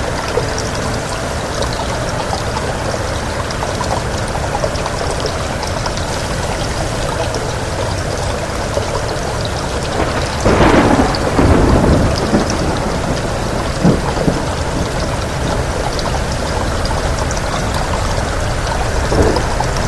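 Steady rain, with a clap of thunder about halfway through that rumbles on for about two seconds before the rain alone returns.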